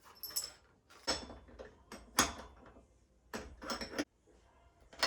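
Short knocks, clacks and scrapes of BMX pegs being handled and fitted to the bike, a few separate bangs with the loudest about two seconds in.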